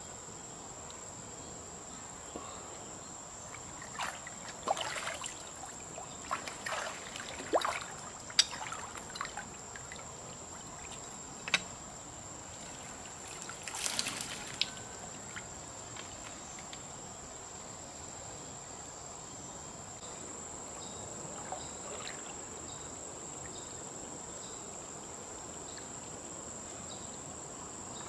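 Shallow river water splashing and sloshing as hands dig along a weedy bank for freshwater mussels, in scattered splashes over the first half. Under it, a steady high-pitched insect buzz.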